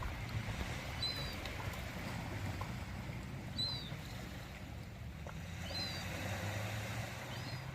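Ocean water washing with a low, steady hum under it, and a short high chirp repeating about every two seconds.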